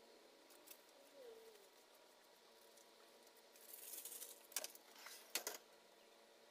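Near-silent porch ambience with a faint bird call about a second in. A little past the middle comes a rustle, then two sharp footstep taps on the concrete floor as a person walks through.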